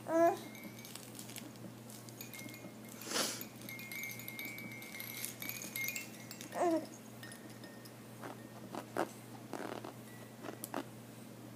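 A baby's short vocal sounds between quiet stretches: a brief falling squeal at the start and another about two-thirds of the way through, with a breathy huff about three seconds in.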